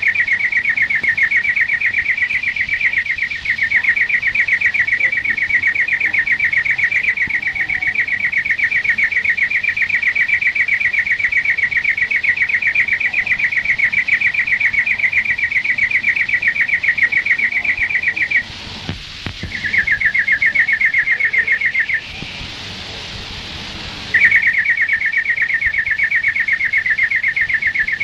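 European greenfinch singing a long, rapid rolling trill, breaking off twice briefly in the last third before resuming.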